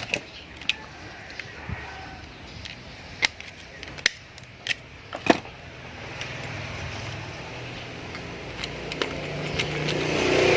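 Scattered sharp clicks and taps of small fishing-reel parts being handled. From about halfway a motor vehicle's engine rises steadily, growing louder toward the end as it approaches.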